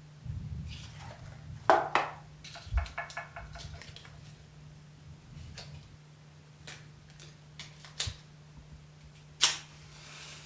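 Sharp clicks and small handling noises, a few loud single clicks with a short run of quick ticks about two and a half seconds in, over a steady low hum.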